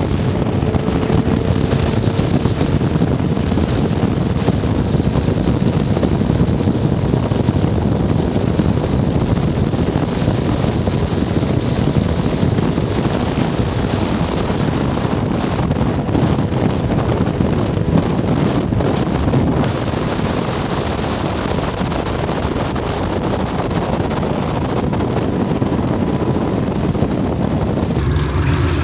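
Loud wind buffeting the microphone and rushing water from motorboats running at speed, with a faint steady engine tone underneath that rises slightly at first.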